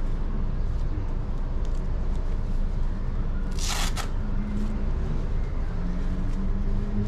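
A steady low background rumble, with one short rustle of glove fabric and packaging about three and a half seconds in as a waterproof motorcycle glove is handled.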